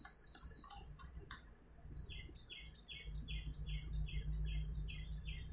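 A small bird chirping faintly in a steady series, about two to three short, high, falling chirps a second, starting about two seconds in, over a low room hum.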